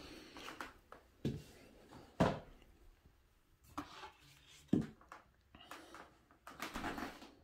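Handling noise: a few sharp knocks and softer scuffs, typical of canvas paintings being moved about and set on a tabletop easel.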